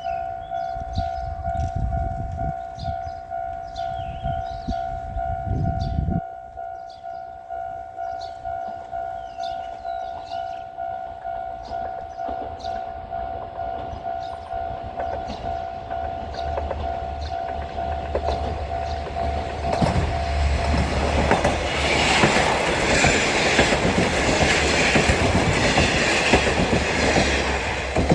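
Japanese level-crossing warning bell ringing in a steady repeating ding. A KiHa 47 diesel railcar then comes up: its low engine rumble builds from a little past halfway, and for the last third the passing train's wheel and engine noise is loudest and drowns out the bell.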